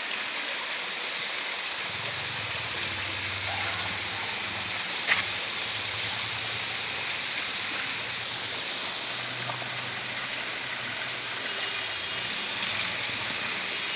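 Small waterfall splashing down rock into a shallow pool: a steady, even hiss of falling water. A single sharp click comes about five seconds in.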